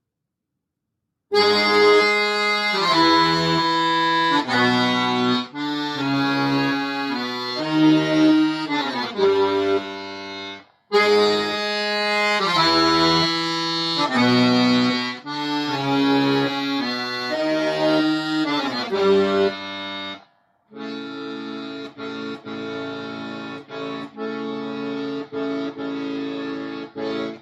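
Solo accordion playing chords over bass notes in phrases, starting after about a second of silence. It breaks off briefly about ten seconds in and again near twenty seconds, after which it plays more quietly in short repeated notes.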